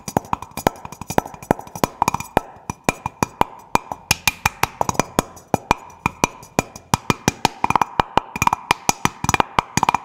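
Fingers drumming a quick, rhythmic pattern on the bottom of the upturned stainless steel catch cup of a Fellow Ode Gen 2 coffee grinder, tapping to knock out retained coffee grounds. Each tap gives a sharp knock with a brief metallic ring.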